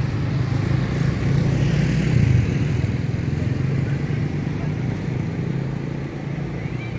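Road traffic: the engines of passing cars and motorcycles running with a steady low rumble that swells about two seconds in and eases off toward the end.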